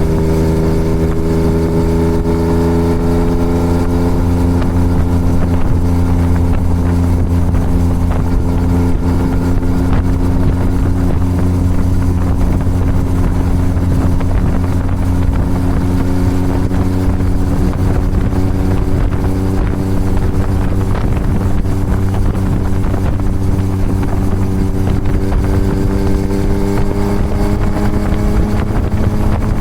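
Yamaha MT-09's three-cylinder engine breathing through a full Toce exhaust, running steadily at cruising speed with some wind noise. The engine note eases down slightly over the first half, then climbs gradually as the bike picks up speed.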